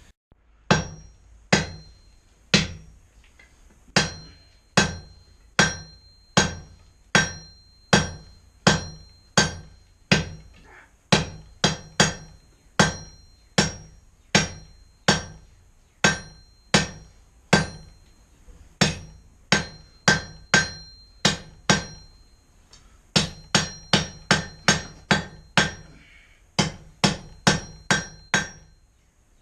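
Hand hammer striking hot steel on an anvil to draw down a taper: steady blows a little over one a second, each with a high ringing tone from the anvil. After a brief pause near the end the blows come faster.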